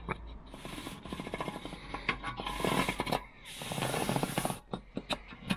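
Marker pen dragged across the van floor in roughly three strokes, a scratchy rasp with fast chattering ticks.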